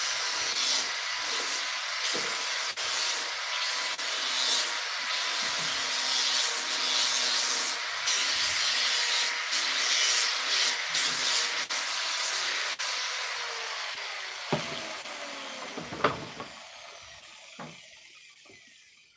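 Electric sander running on a wooden speaker-box panel with a steady rasping hiss and a motor whine. In the last few seconds it is switched off and the whine falls away, with a few sharp knocks.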